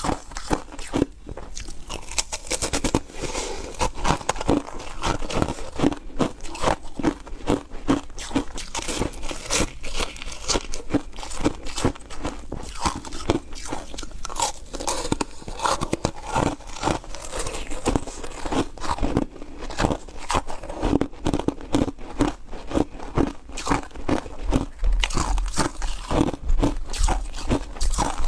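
A person biting and chewing ice: a quick, uneven run of crisp crunches, several a second.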